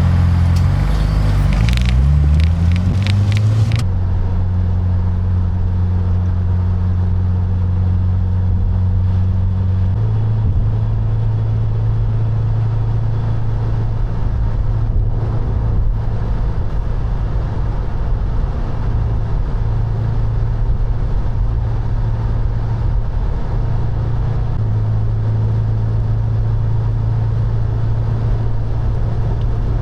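Subaru WRX's turbocharged flat-four engine accelerating, its pitch rising for the first few seconds, then settling into a steady low drone at cruising speed, with a small step up in pitch about a third of the way through.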